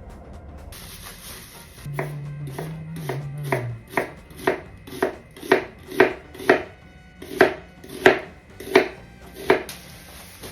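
Kitchen knife chopping on a cutting board, steady strokes about two a second starting about two seconds in.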